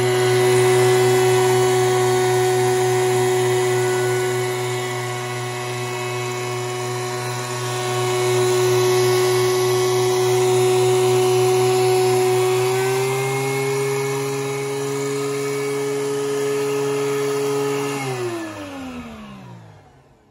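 DeWalt DW735 two-speed thickness planer running with a steady whine from its 15-amp motor and three-knife cutterhead while a pine board feeds through. Its pitch rises a little about 13 seconds in. About 18 seconds in it is switched off and winds down with a falling whine, going quiet near the end.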